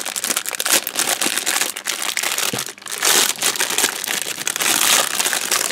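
Clear plastic packaging bag crinkling and crackling as it is pulled open by hand, a dense run of crackles that gets louder about three seconds in and again near the end.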